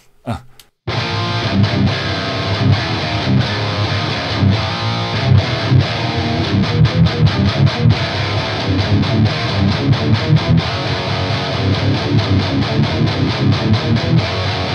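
Heavily distorted electric guitar riffing, played through the Fortin Nameless amp-sim plugin into the power amp of a Randall Satan 50 tube head and a miked 2x12 cabinet. It starts suddenly about a second in, with fast, choppy notes and a heavy low end.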